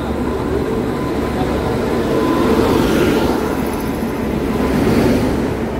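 WAP-7 electric locomotive passing close along the platform, its wheels rumbling over the rails. The rumble swells twice, about three and five seconds in, as it goes by.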